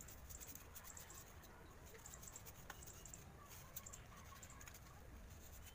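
Faint scratching and small clicks of a hand tool working the edge of a piece of packing styrofoam, in short scattered strokes.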